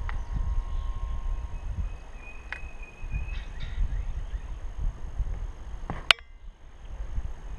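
Uneven low rumble on a kayak-mounted camera's microphone, with a faint high bird call about two to three seconds in and a single sharp click about six seconds in.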